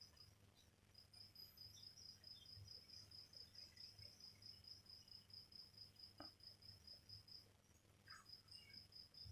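Faint cricket chirping: a steady, evenly pulsing high trill of about five or six pulses a second, which stops briefly near the end and then resumes.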